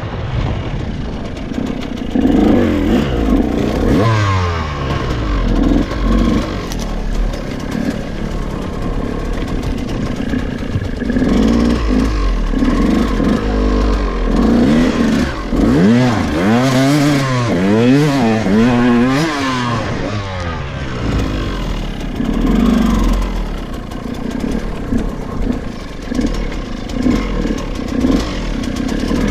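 KTM 200 EXC two-stroke single-cylinder dirt-bike engine revving up and dropping back again and again while riding off-road, with the throttle worked hard in the middle stretch, along with rattling clatter from the bike.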